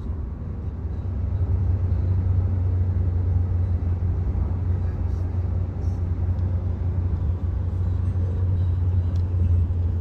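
Steady low road rumble of a car driving at speed, heard from inside the cabin, getting a little louder about a second in.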